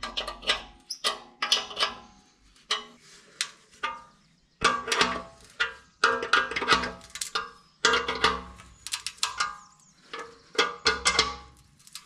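Irregular metallic clinks and rattles of a spanner on nuts and bolts, with short ringing from the steel tractor seat pan, as the seat-mounting nuts are tightened.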